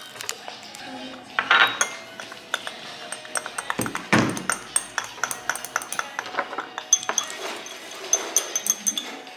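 Background music with bright pinging notes and many short clicks, over faint voices.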